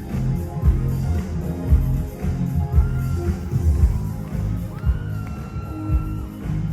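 Live pop music with a heavy bass beat and singing, with a long high note held near the end.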